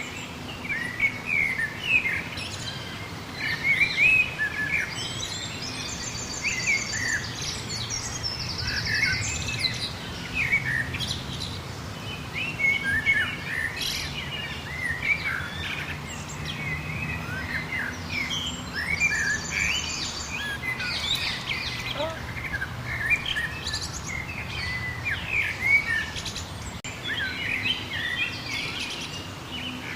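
Several songbirds chirping and singing, their short calls overlapping, with a fast, high trill twice.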